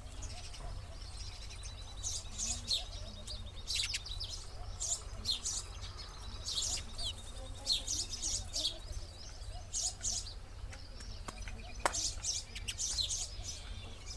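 Sparrows chirping: a steady run of short, sharp, high chirps, several a second, over a low steady hum.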